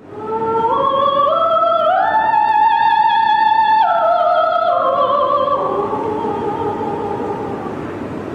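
A high voice singing in operatic style. It climbs step by step to a long, very high note with vibrato, holds it, then steps back down.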